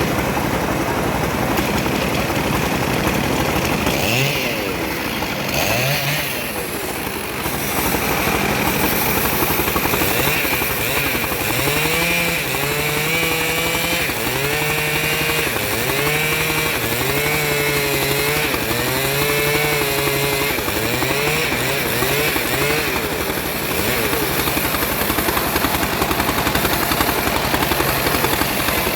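Stihl MS 381 two-stroke chainsaw running. Its pitch rises twice a few seconds in, then repeatedly drops and picks back up about once a second through the middle stretch before it settles into a steady run.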